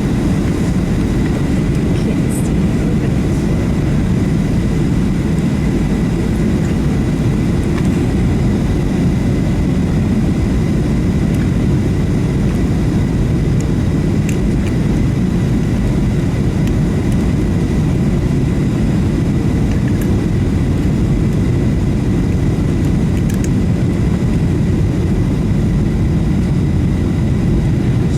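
Steady roar of a Boeing 737-700's jet engines and rushing air, heard inside the passenger cabin in flight, with a faint steady high whine over it.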